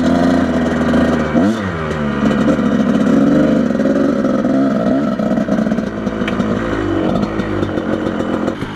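Off-road motorcycle engine running loud under the rider, its pitch rising and falling as the throttle opens and closes.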